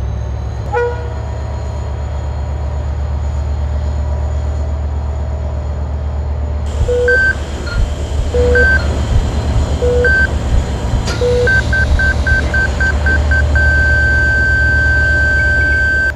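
Deep low rumble under electronic monitor beeps that come about every second and a half, quicken to about four a second, and then run into one long unbroken tone: a heart monitor flatlining.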